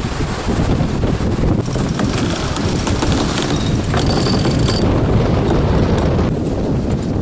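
Strong wind buffeting the microphone over the rush of breaking sea, a dense low rumble throughout. A brief high whistle sounds about four seconds in.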